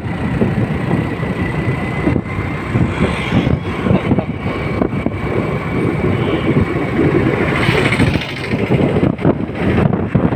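Wind buffeting the microphone over steady engine and road noise while riding a motorcycle, with other traffic passing.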